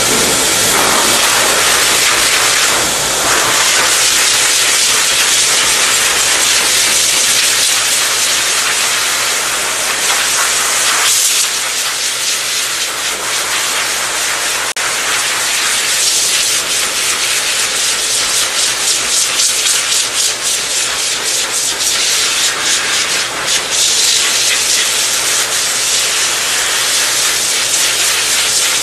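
High-velocity pet dryer blasting air through its hose onto a wet dog's coat: a loud, steady rushing hiss that starts suddenly and dips slightly about eleven seconds in.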